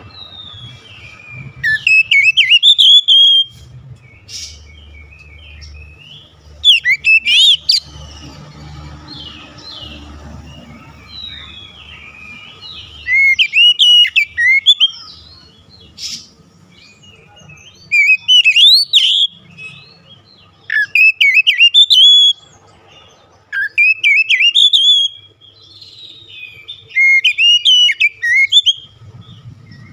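Oriental magpie-robin singing in repeated loud bursts, each a second or two long, of rising and falling whistles and quick, varied phrases, with quieter calls in the gaps between bursts.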